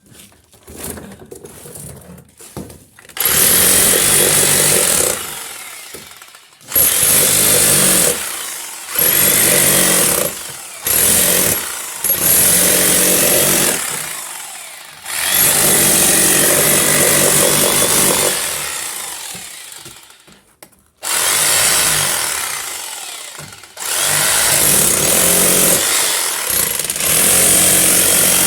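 Electric hammer drill chiseling into a wall, run in repeated bursts of one to five seconds with short pauses between. It starts about three seconds in.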